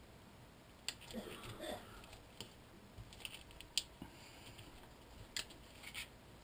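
Snap-off utility knife cutting through a thin wooden skewer: a few quiet, irregular sharp clicks and cracks, the loudest a little under four seconds in.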